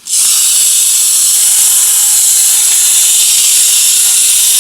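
Small wind-up toy's spring motor released and whirring steadily, a loud high hiss as the figure spins; the mechanism is not working as it should.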